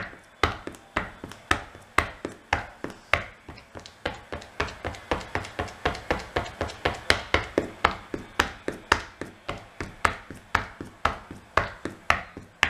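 Rubber-soled running shoe tapping on a tile floor in a run of sharp taps, about two a second at first and quicker, three to four a second, from about four seconds in.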